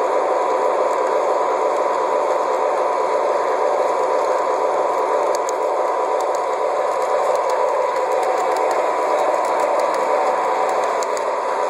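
Model train running along its track, heard from on board: a steady motor whine and wheel rumble, with light clicking in the second half.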